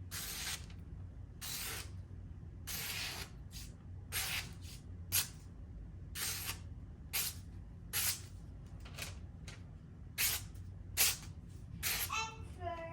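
A freshly sharpened knife edge slicing through thin phone book paper, a dozen or more short hissing swishes in quick succession, each one a clean cut.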